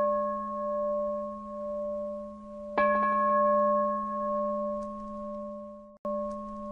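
A Buddhist singing bowl struck and left to ring with a slow, wavering hum, closing the chanting. It is struck again about three seconds in, and the ringing cuts out for an instant near the end.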